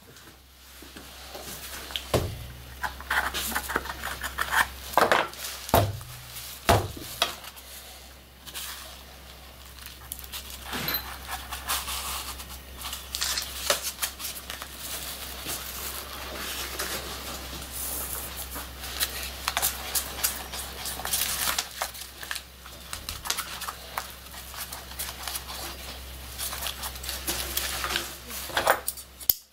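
Hands handling a twine-wrapped cylindrical firework shell and its fuse on a workbench: irregular knocks, clicks and paper rustling, over a low steady hum.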